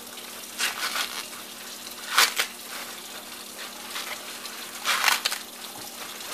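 Husks being torn and stripped off an ear of fresh corn by hand, in a few short ripping rustles.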